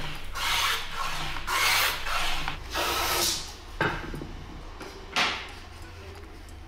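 Japanese hand plane (kanna) shaving a wooden drum stave: a run of rasping planing strokes close together in the first few seconds, then a couple of shorter, sharper strokes.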